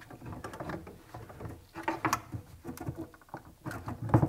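Laing recirculation pump being fitted by hand into its wall bracket: scattered clicks, knocks and scraping as the pump body is worked into place, with a sharper knock near the end.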